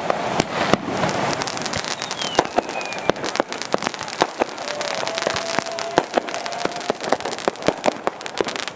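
Fireworks going off in quick succession, many sharp bangs and crackling reports overlapping. A short falling whistle sounds about two and a half seconds in.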